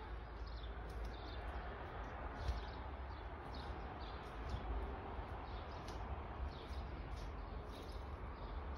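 A small bird chirping over and over, short high chirps about two a second, over a steady low rumble.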